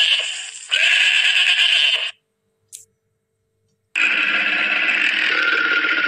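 Goat bleating: a wavering bleat trails off, then a second full bleat comes about a second in. After a short silence, a different long, steady sound starts about four seconds in.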